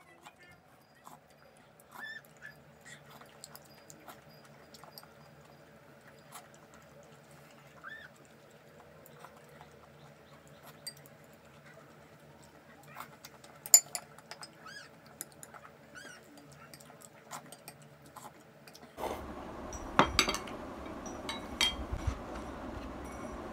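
Quiet eating at a table: wooden chopsticks and a wooden spoon tapping and clinking against a glass bowl and a ceramic plate, with small mouth sounds of chewing and sipping. Near the end a steady hiss comes up and the dishes clink louder as they are gathered onto a wooden tray.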